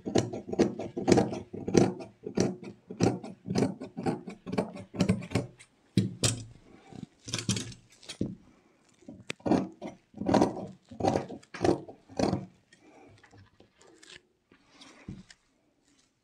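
Large tailor's shears cutting through fabric: a quick run of snips, about three a second, then slower, spaced cuts that grow fainter about three-quarters of the way through.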